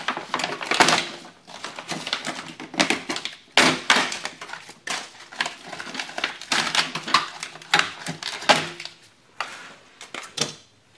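Thin plastic sheeting on a car door's inner panel crinkling and rustling as it is pulled away by hand, in a run of irregular crackles that dies down near the end.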